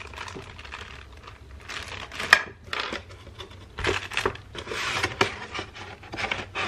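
Cardboard box and paper packaging rustling and crinkling as they are handled, in irregular bursts, with one sharp click about two seconds in.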